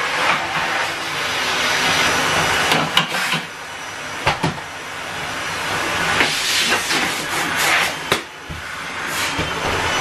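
Henry cylinder vacuum cleaner running, its suction hiss swelling and dipping as the nozzle is worked over a treadmill. A few sharp knocks of the nozzle and wand against the treadmill come about three seconds in, past four seconds and around eight seconds.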